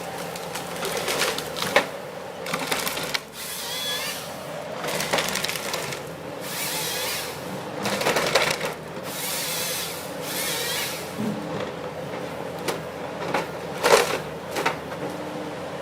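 A forestry harvester head working a tree: repeated bursts of wood cracking and breaking as branches are stripped from the trunk, over the steady drone of the machine's engine and hydraulics. A sharp, loud crack comes about fourteen seconds in.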